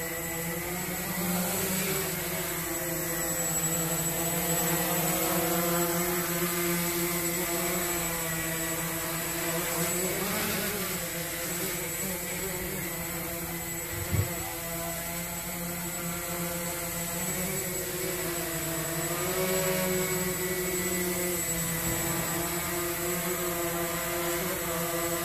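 Walkera QR X350 Pro quadcopter in flight: its four brushless motors and propellers buzz steadily, the pitch rising and falling as it manoeuvres. A single short knock about 14 seconds in.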